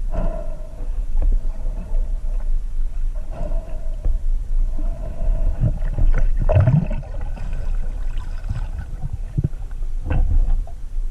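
Underwater ambience picked up through a camera's waterproof housing: a steady low rumble with scattered clicks and knocks, a faint tone coming and going, and a short rising low sweep about six and a half seconds in.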